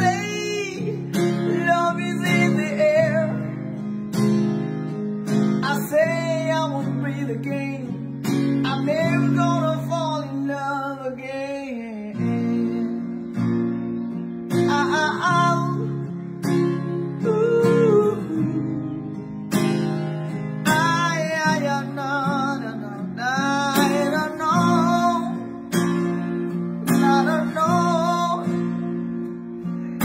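A man singing a love song to his own strummed acoustic guitar; the voice rests briefly about twelve seconds in while the guitar carries on.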